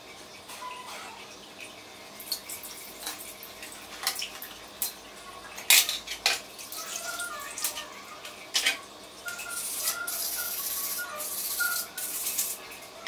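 Clicks and knocks of a copper-clad circuit board being handled on a wet tiled floor, then, about nine seconds in, a few seconds of hissing as the copper is rubbed with a small pad.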